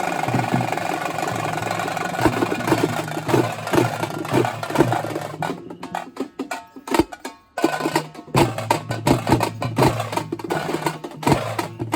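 Traditional Karnataka folk drums beaten in a fast rhythm, breaking off briefly about halfway through and then starting up again.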